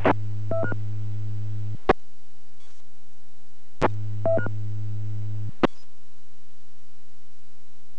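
Ham radio transceiver on a net frequency, with no one speaking: a steady low hum from open transmissions, short paired electronic beeps and sharp squelch clicks. The hum cuts out twice, each time with a click.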